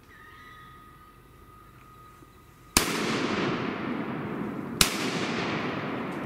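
Two shotgun blasts about two seconds apart, each followed by a long rolling echo that dies away slowly. A faint steady high tone runs before the first shot.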